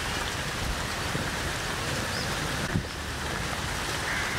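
Onions, shallots and green chillies frying in oil in an open pot: a steady sizzling hiss, with a single click a little before three seconds in.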